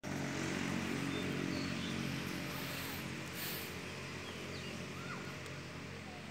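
Tracked hydraulic excavator's diesel engine running steadily at a low, even pitch, growing slightly fainter. A few short bird chirps come over it.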